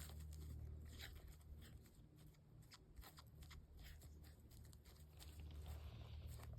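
Faint, irregular crunching and crackling clicks, like rustling in dry leaf litter, over a steady low rumble.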